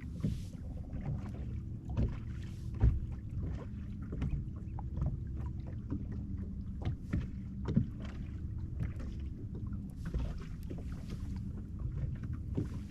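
Small fishing boat sitting on the water: a low steady hum with irregular knocks and taps, the loudest about two and three seconds in, as tackle is handled while a loop knot is tied.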